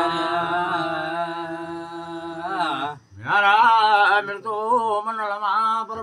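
Men chanting a Kumaoni jagar song without drums: one long held note for nearly three seconds, a short break, then a wavering sung phrase.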